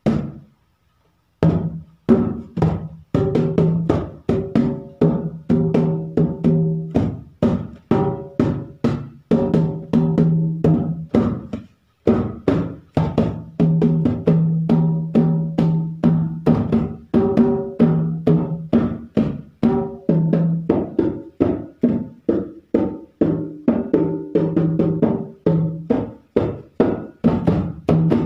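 Dholak, a two-headed barrel hand drum, played with bare hands in a fast, steady rhythm: ringing low strokes on the bass head mixed with sharp slaps on the treble head. The playing pauses briefly just after the start and again near the middle.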